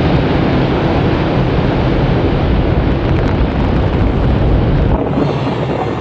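Rocket engines firing at liftoff: a loud, steady, deep rumbling noise. About five seconds in, the deepest part drops away and a thinner rushing noise is left.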